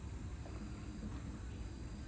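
Outdoor ambience: a steady high-pitched insect drone over a low rumble, with no distinct events.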